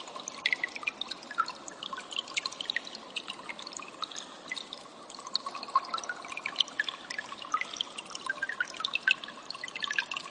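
Cililin birds calling in a fast, continuous stream of short, high chirps and ticks.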